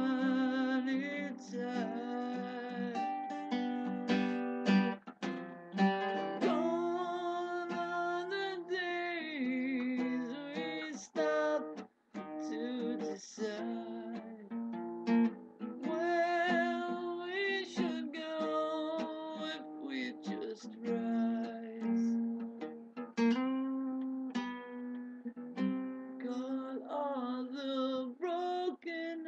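Guitar music: a plucked-string instrumental passage, with sustained, wavering melody notes over chords.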